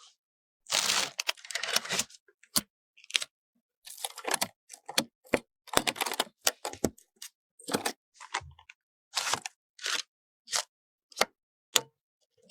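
Hands handling PC components and their packaging: an irregular run of sharp plastic clicks and snaps mixed with short tearing and crinkling rustles, with brief silences between them.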